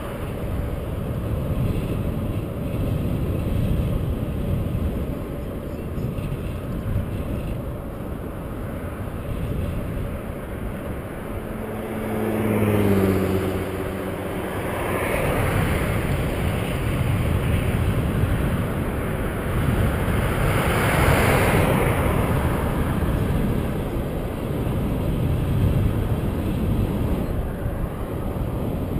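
Wind rushing over the microphone of a camera on a moving bicycle. Cars pass on the highway: near the middle, a short engine hum drops slightly in pitch, followed by two swells of tyre noise that rise and fade.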